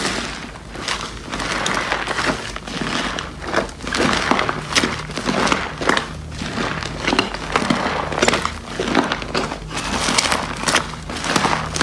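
Slime being squeezed and pressed by hand, giving dense, irregular crackles and small pops throughout.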